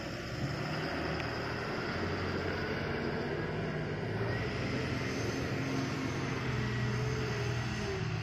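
Diesel engine of a loaded tipper truck pulling away over rough dirt, running steadily under load, its note climbing slightly from about halfway through.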